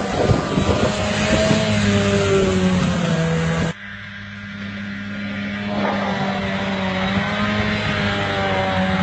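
Snowmobile engine running hard at high throttle with a steady, high engine note. About a third of the way in it cuts off suddenly, then comes back and slowly climbs again.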